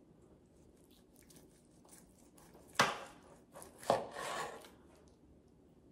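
A long slicing knife sawing down between the bones of a cooked rack of St. Louis-cut spareribs, with faint scraping, then two sharp knocks of the blade on the plastic cutting board about three and four seconds in.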